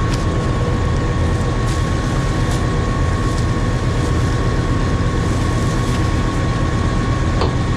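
Combine harvester running steadily: a constant low engine drone with a thin steady whine above it, and a few faint clicks.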